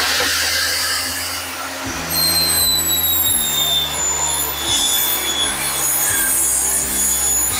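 DeWalt DWE7470 table saw running, its motor humming with a high whine that comes in about two seconds in and sags slowly in pitch.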